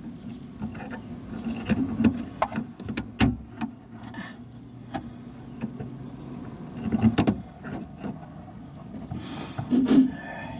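Scattered clicks and knocks of hands working inside a car door, fiddling the door-lock rod toward its plastic clip, with a brief rustle near the end.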